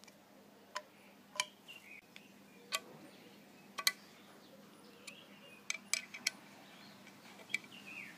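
Irregular light metallic clicks and clinks, about eight or nine sharp ones over several seconds, as metal parts are handled on the supercharger housing.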